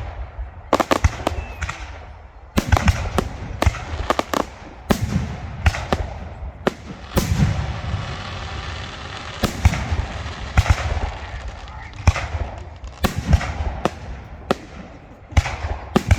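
Fireworks display: a rapid, irregular series of sharp bangs and deep booms from bursting aerial shells, with a spell of hissing crackle about halfway through.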